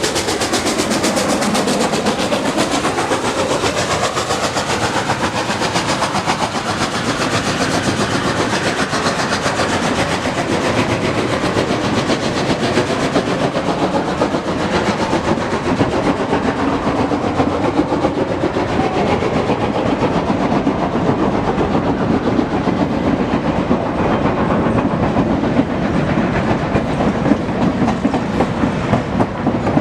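A train's cars rolling past, steel wheels clicking over the rail joints in a steady, continuous clatter.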